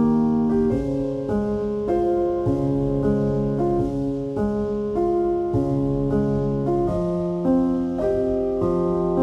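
Background music played on a piano or electric piano, a steady run of notes and chords that changes about every half second.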